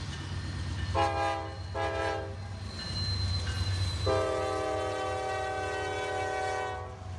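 Train horn sounding two short blasts about a second apart, then one long blast of about three seconds, over a steady low rumble.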